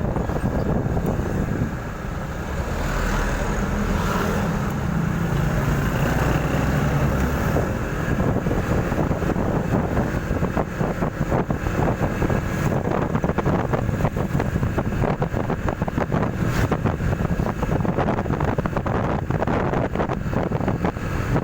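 Wind buffeting the microphone of a moving motorcycle, a loud, rough rush with rapid gusty fluctuations, over the low hum of the motorcycle on the road.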